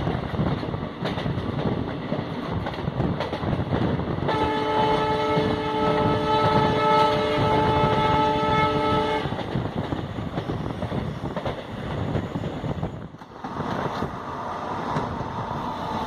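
Horn of a WDP-4 diesel locomotive, a chord of several steady tones sounding one long blast of about five seconds starting about four seconds in, over the steady rumble and wheel-on-rail noise of the moving train, heard from a coach behind the locomotive.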